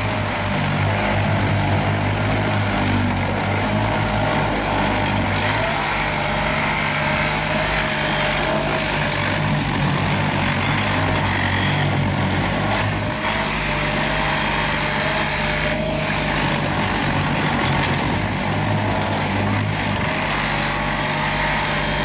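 Excavator-mounted ballast tamping heads running, their tines vibrating in the track ballast, over the steady run of the excavator's engine. The low engine hum swells and eases a few times.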